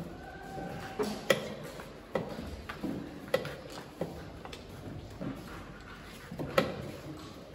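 Draughts pieces being set down on the boards and game clocks being pressed during fast blitz play: about ten sharp clacks at irregular intervals, the loudest about a second in and near the end.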